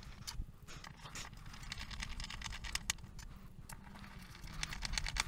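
Screws being turned in by hand with a screwdriver, through an aluminium table fitting into a pre-drilled bamboo tabletop: irregular small clicks and scrapes, coming thicker near the end.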